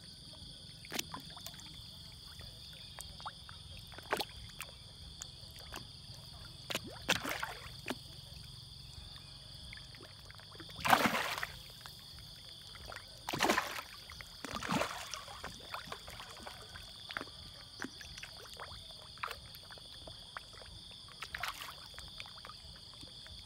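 Feeding fish breaking the pond surface, with scattered splashes and slurps. The loudest comes about eleven seconds in, with two more a few seconds later. A steady high-pitched hum lies underneath.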